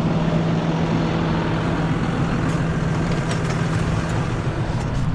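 John Deere tractor's diesel engine idling steadily, a constant low hum. A few light knocks midway.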